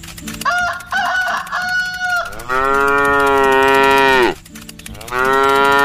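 Cow mooing: two long, loud moos, the first about two seconds long, the second starting about five seconds in. Before them, a few short chicken clucks.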